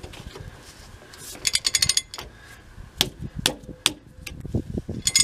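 Metal clicking and clinking of a large socket and handle being worked onto the outer wheel-bearing nut of a truck's rear axle hub, with a quick run of rapid clicks about one and a half seconds in, a few single clicks, and another rapid run near the end.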